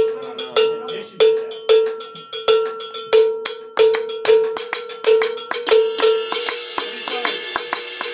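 Percussion ensemble playing an Afro-Cuban groove: a cowbell struck steadily about twice a second over drums and other hand percussion. From about six seconds in, cymbals swell in behind the pattern.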